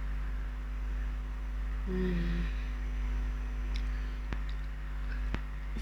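A steady low electrical hum runs under everything. About two seconds in, a woman gives a brief closed-mouth 'mmm', and two faint clicks follow near the end.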